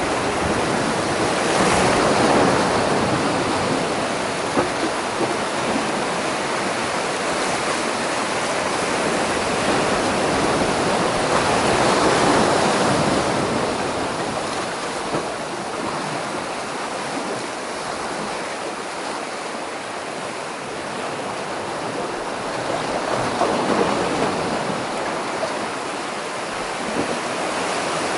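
Sea surf breaking and washing over shoreline rocks, a steady rush that swells and ebs away in three big surges, one about every ten seconds.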